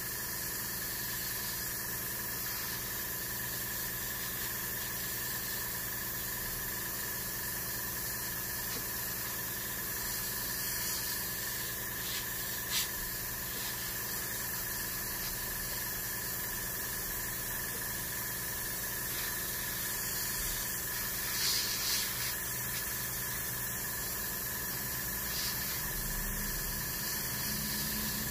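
Gravity-feed airbrush spraying primer with the trigger pulled back, a steady hiss of air and paint, over a steady low mechanical hum.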